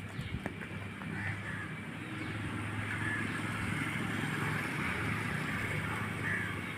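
A motor vehicle's engine running steadily, a little louder in the middle, with a few short bird calls over it.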